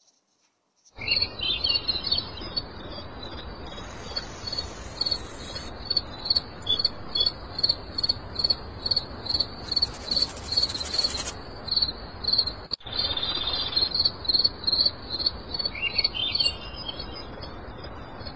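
Crickets chirping in a steady high pulse, about two chirps a second, over a steady hiss, with a short bird chirp near the start and again near the end.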